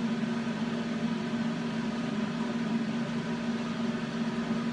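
Electric room fan running with a steady hum, no change throughout.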